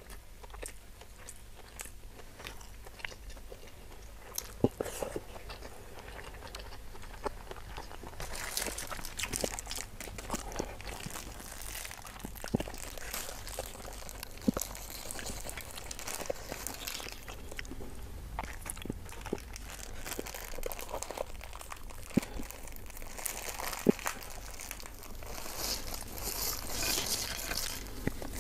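Close-up mouth sounds of chewing a mouthful of tender beef and rice, with occasional sharp smacks. Then a plastic bag of crackers crinkles as it is handled and opened, loudest near the end.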